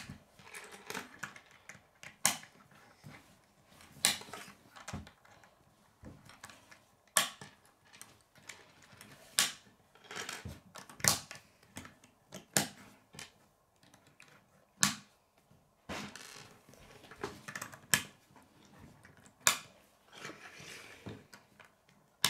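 Plastic K'nex rods and connectors clicking as they are snapped together and knocked on a wooden tabletop: irregular sharp clicks a second or two apart, with light rattling between them.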